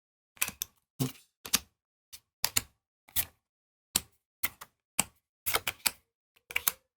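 Magic: The Gathering trading cards being flipped through and laid down one at a time: about a dozen short, sharp card snaps and taps, roughly two a second.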